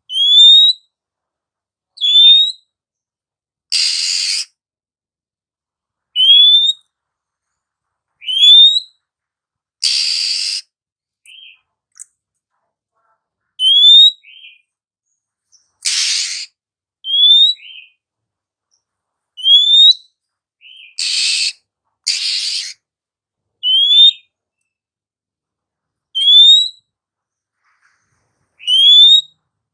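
Female oriental magpie-robin calling: a short rising whistle repeated about every two seconds, broken five times by a harsh, rasping call.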